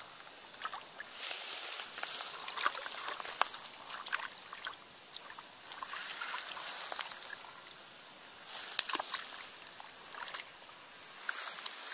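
Hands splashing and working through shallow muddy water and soft mud, feeling for fish, in irregular spells with small sharp splashes.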